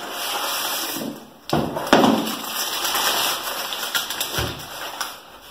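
Packing material rustling and crinkling as parts are dug out of a shipping box, with a few sharp knocks, two close together about one and a half seconds in and one more near the end.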